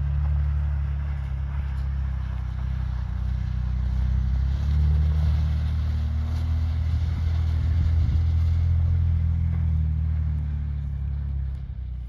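Ford Bronco's engine running at low revs along a dirt trail. The revs rise a little about four seconds in and ease off near the end.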